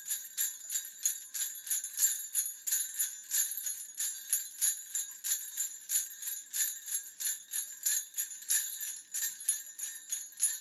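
Jingle bells shaken in a steady rhythm, about four to five shakes a second. The ringing is bright and high-pitched, with no other instrument or voice under it.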